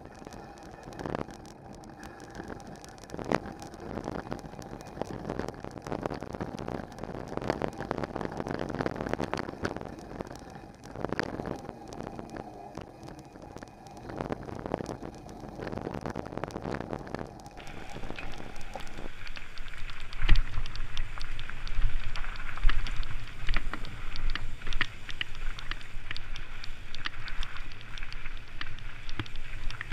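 Trek Stache 7 mountain bike ridden over a rocky dirt trail: tyres rolling over dirt and gravel, with many small clicks and knocks as the bike rattles over rocks, and wind on the microphone. About two-thirds of the way through the sound gets louder, with more low rumble.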